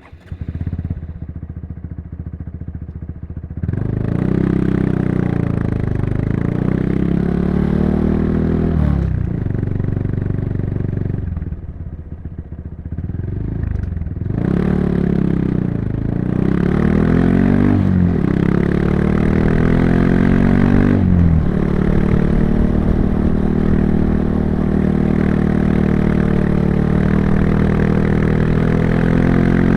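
Honda Monkey 125's single-cylinder engine and exhaust under way: it pulls through the gears, the pitch climbing and dropping back at each upshift, eases off briefly in the middle, then settles to a steady cruise for the last several seconds.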